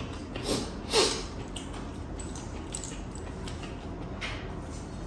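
A man's heavy breathing from chilli burn: sharp breathy puffs out through the mouth. Two loud ones come about half a second apart near the start, then a few fainter ones.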